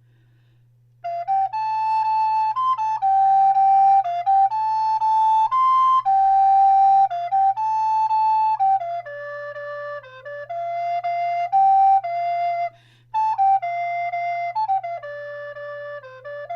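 Moeck Rottenburgh alto (treble) recorder in rosewood playing a very happy sounding tune, a single line of held and stepping notes. It starts about a second in and breaks off once briefly about three-quarters of the way through.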